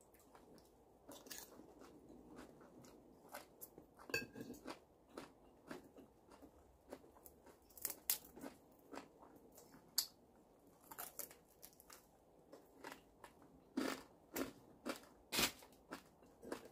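A person chewing grilled fish close to the microphone: irregular wet crunches and mouth clicks, with a few sharper, louder crunches in the second half.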